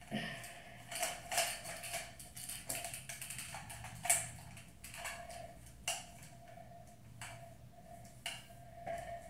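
Irregular plastic clicks, knocks and rattles as a flat iron hair straightener is handled and its cord unwound, over a faint steady hum.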